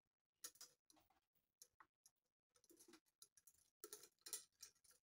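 Faint, irregular small clicks and jingles of a handbag's gold metal chain strap and its clasp being handled and fastened onto the bag's hook.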